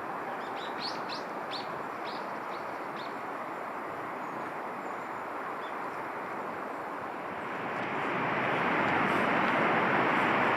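A bird giving a quick series of short, high chirps in the first few seconds, over a steady rushing background noise that grows louder about eight seconds in.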